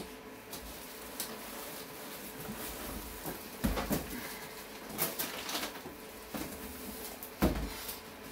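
Cardboard box flaps and plastic wrapping rustling and crinkling as a plastic-wrapped PC tower case is lifted out of its shipping box, with a thud about three and a half seconds in and a louder one about seven and a half seconds in as the case is set down on the table.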